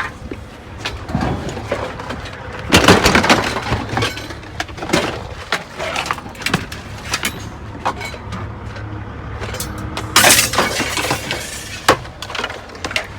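Scrap metal pieces clanking and clinking as they are handled and tossed together, a run of irregular sharp knocks with heavier clatters about three seconds in and again about ten seconds in.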